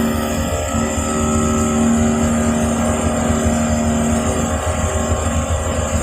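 Steady drone of shipboard deck machinery: a constant hum over a low rumble.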